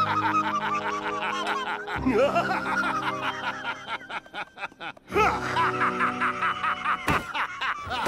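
An old man laughing hard in long fits of snickering, with a brief lull and a fresh loud burst about five seconds in, over background music.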